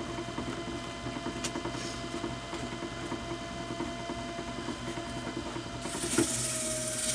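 Wood lathe running steadily with an oak bowl spinning on it. About six seconds in, sandpaper is pressed against the spinning bowl and a hiss of sanding starts.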